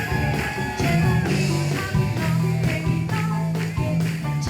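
Background music with a steady beat: an upbeat rock-style track with bass and guitar.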